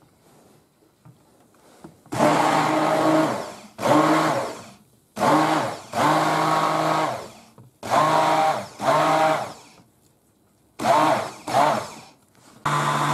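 A 400-watt handheld immersion blender blending a liquid flan mixture in a tall cup. Starting about two seconds in, it is switched on in about seven short pulses, each winding down in pitch as the motor stops. Near the end it is held on and runs steadily.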